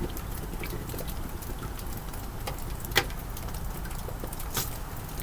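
Hot forged steel clamp being stirred in a bucket of quench oil, the oil sizzling and crackling with scattered pops, one sharper pop about three seconds in.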